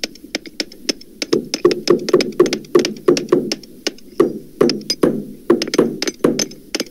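Hammer blows in quick, irregular succession, about four a second and thicker from about a second in. Each is a sharp crack over a low thud, because the recording has been pitched down to make the blows deeper.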